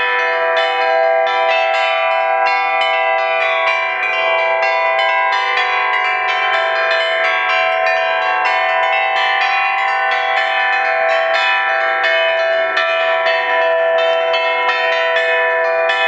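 A set of metal plate bells hung in rows on wooden frames, struck in a fast, continuous peal: many overlapping ringing tones with several strikes a second.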